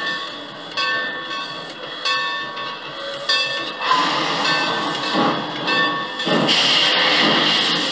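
Steam locomotive, ex-Rahway Valley 2-8-0 No. 15, with its bell ringing slowly, about one stroke a second and a bit. From about four seconds in, a rush of steam builds into a loud steady hiss, as at a departure. Heard off a 1965 vinyl record.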